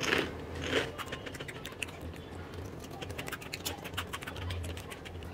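A person chewing crunchy diamond-shaped masala chips: a quick, irregular run of crisp crunches.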